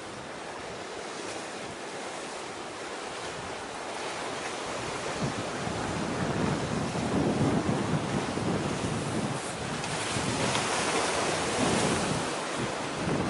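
Wind buffeting the microphone over the wash of the sea, growing stronger about five seconds in.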